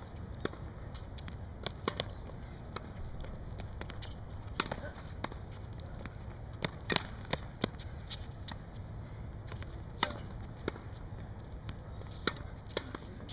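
Tennis balls struck by rackets and bouncing on a hard court during a groundstroke rally: sharp pops at uneven intervals of about one to two seconds, over a steady low background.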